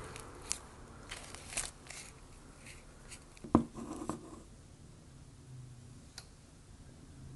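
Plastic spoon scraping and digging through soft-serve ice cream packed with crushed Oreo cookie pieces in a paper cup, with a few short scrapes and clicks. About three and a half seconds in there is one sharp, loud knock with a brief ring as the loaded spoon comes up, and then it goes quiet.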